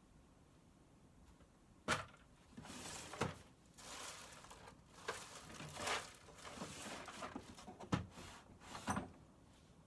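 Handling noises: a few sharp clicks and knocks with rustling and scraping between them, starting about two seconds in and stopping near the end.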